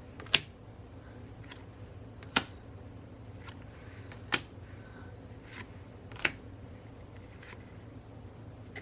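Small paper photo cards handled and set down one by one on a table: a sharp tap about every two seconds, with fainter clicks and soft card rustling between.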